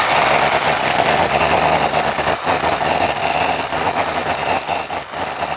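Tractor engine running steadily, a loud, even drone.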